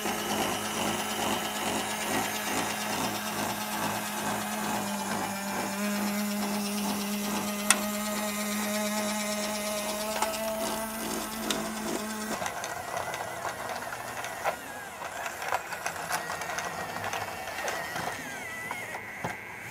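Battery-powered knockoff Thomas transformer toy train running, its small motor and plastic gearbox whirring with a steady hum and a regular pulsing clatter. About twelve seconds in the hum stops, leaving irregular clicking and rattling of the toy's mechanism.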